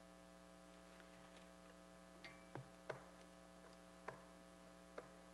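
Near silence: a steady electrical hum, with a handful of faint, scattered clicks and knocks.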